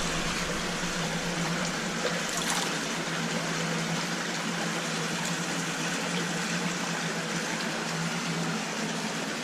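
Creek water running steadily, with a steady low hum underneath.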